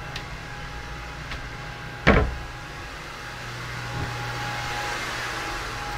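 Built-in cabin cupboard door knocking shut about two seconds in, after a couple of light clicks, over a steady low ventilation hum.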